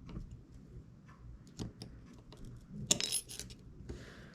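Small tools and tiny metal parts of an opened iPhone 6s clicking and tapping during disassembly, with a brief burst of metallic clinking about three seconds in, the loudest sound.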